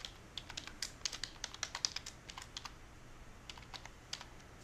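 Typing on a computer keyboard: a quick run of key clicks for the first two or three seconds, then a few scattered keystrokes.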